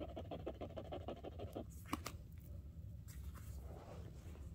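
Metal earring post scraped rapidly back and forth on a black jeweller's testing stone, a fast scratching of about ten strokes a second for the first second and a half, then a single click and a few lighter scrapes. The post is being scratched on the stone to leave a streak for testing the metal.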